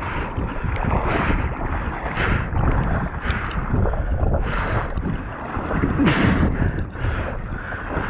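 Strong wind buffeting the microphone in a low rumble, with a rustling hiss that swells roughly once a second.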